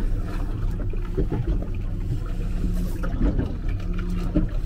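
Boat engine running steadily at idle, a low even hum, with some water noise.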